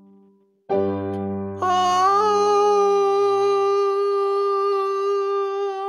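After a brief hush, an accompaniment chord comes in about a second in, and a man's voice then holds one long wordless note that wavers slightly as the chord fades beneath it.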